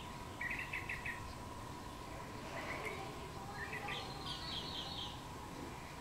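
Bulbul calling in short bursts of rapid, evenly spaced chirps: one burst about half a second in, and a longer, higher series near the end, over steady background noise.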